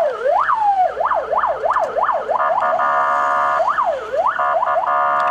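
Police car's electronic siren wailing, alternating between rapid rising-and-falling sweeps and stretches of a steady tone.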